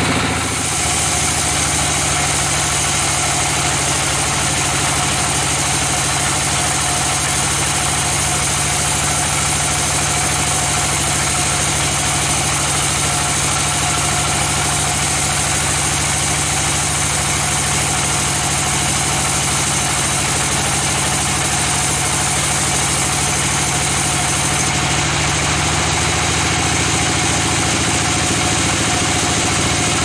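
Band sawmill running steadily while its blade saws lengthwise through a mahogany log: a constant mechanical drone from the mill's motor and blade. The pitch of the drone changes slightly about 25 seconds in.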